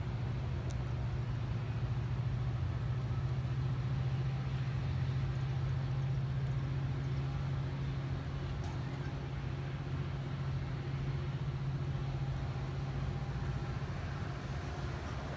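A steady low engine drone holding one pitch.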